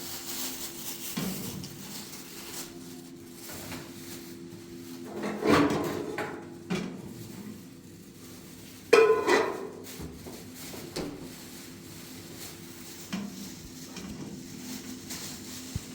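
Household clatter of objects being handled and set down, over a steady low hum, with two louder knocks about five and a half and nine seconds in.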